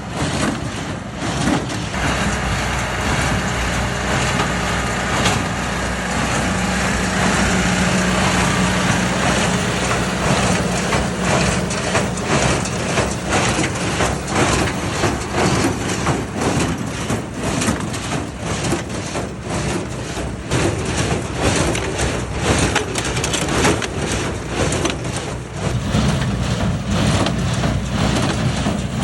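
Farm tractor running steadily under load while pulling a hay baler that takes up and compresses the hay, with many knocks and rattles from the machinery.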